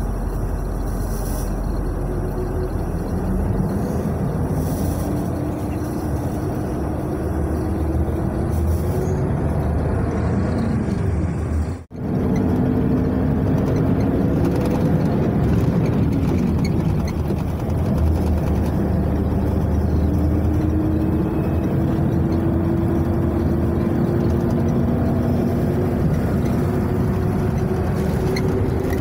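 Engine and road noise of an intercity coach heard from inside the passenger cabin, the engine note slowly rising several times as it pulls through the gears. The sound drops out for an instant about twelve seconds in.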